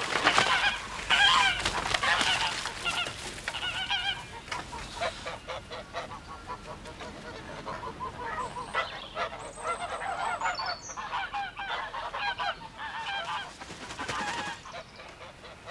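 A flock of domestic geese honking repeatedly, loudest in the first couple of seconds. A few higher, squeaky calls come about two-thirds of the way through.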